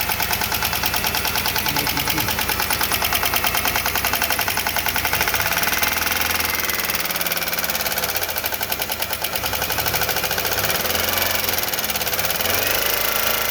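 GM 3800 V6 engine running with a loud, fast, even ticking.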